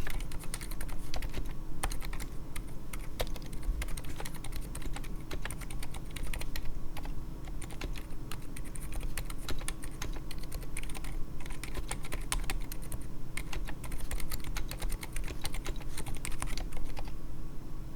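Continuous fast typing on a BM60 keyboard in a resin case, fitted with stock, unlubed Durock Daybreak (Silent Alpaca) 67 g silent linear switches and XDA-profile PBT keycaps, resting on a cloth mousepad. The keystrokes come as a dense run of clicks with a few brief pauses.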